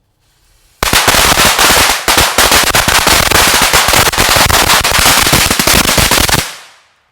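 A string of large Duck brand firecrackers going off in a dense, rapid crackle of bangs. It starts suddenly about a second in, runs for about five and a half seconds, then stops abruptly with a short fading echo.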